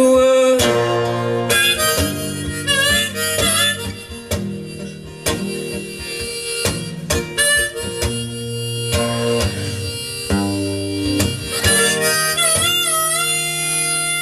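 Recorded blues music with harmonica and guitar, played back over Bowers & Wilkins 805 D3 loudspeakers. The harmonica carries long wavering, bending notes over a steady low accompaniment.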